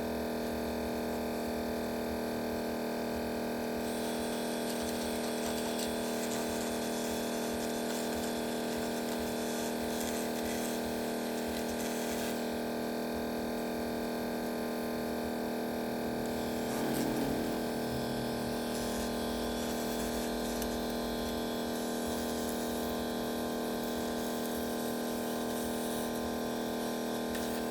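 Steady mechanical hum of a small electric motor, such as a pump or fan, with several constant tones over a hiss, and a brief louder bump about 17 seconds in.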